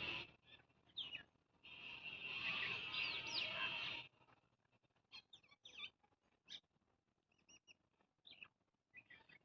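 Small birds chirping: a dense chorus of quick high chirps, broken by a short lull, cuts off suddenly about four seconds in, then single chirps come scattered with quiet gaps between.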